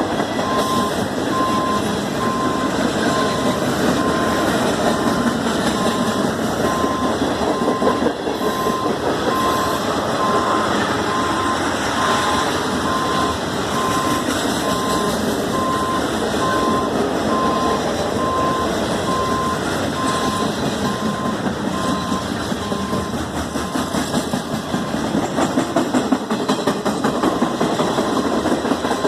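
Norfolk Southern freight train cars rolling past at steady speed, a continuous rumble and rattle of wheels on rails. A regular beeping tone repeats over it.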